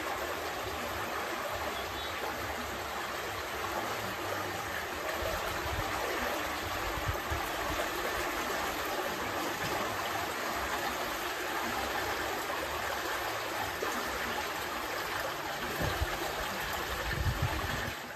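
Fast, deep creek in high spring flow, a steady rush of water. A few low thumps come through, more of them near the end.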